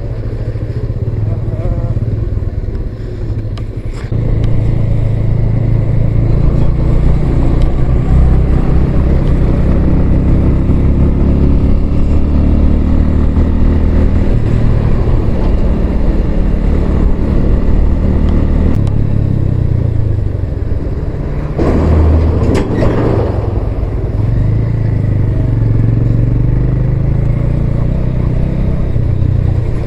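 Motorcycle engine running steadily while riding, its pitch rising and falling with speed, with a short rush of noise a little after twenty seconds.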